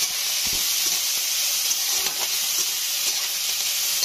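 Crushed garlic, green chillies and ginger sizzling steadily in hot mustard oil in a kadhai, with occasional scrapes of a metal spatula stirring them.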